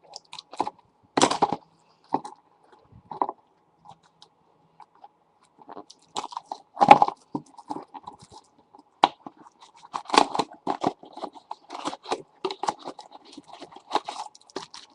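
Plastic trading-card pack packaging crinkling and crackling in irregular bursts as it is cut and pried open with a knife, with a few louder crunches.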